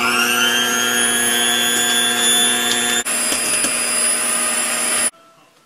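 Electric hand mixer running at high speed, its twin beaters whirring through butter and egg in a stainless steel bowl. A steady whine that breaks for an instant about three seconds in and cuts off sharply near the end.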